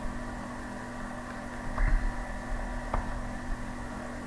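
Steady electrical hum and hiss from the recording setup, with two faint short clicks or bumps about two and three seconds in.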